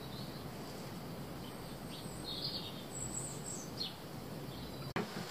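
Faint steady background noise with a few brief, faint bird chirps in the middle, and a single sharp click near the end.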